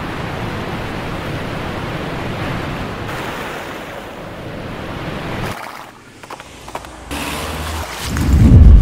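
Rushing water, a steady full-range rush like a waterfall. About five and a half seconds in it drops away, leaving a few small splashes. A deep low rumble then swells up near the end and is the loudest sound.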